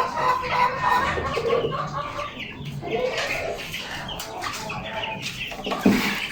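Several birds calling with many short, overlapping calls, a louder one near the end.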